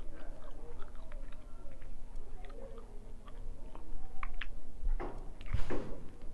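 A person eating hilsa fish curry and rice with the fingers, close up: chewing with small wet mouth clicks, and a louder wet smack or slurp about five seconds in.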